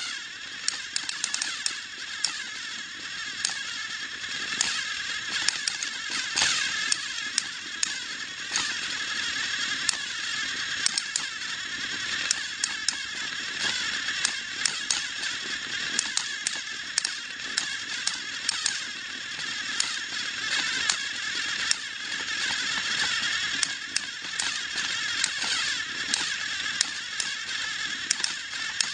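Battery-powered toy trains running on plastic track: a steady motor whir with frequent sharp clicks throughout.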